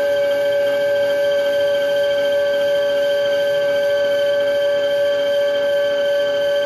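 Metal lathe boring out aluminium with a thin boring bar, giving a steady, high-pitched whine that holds one pitch.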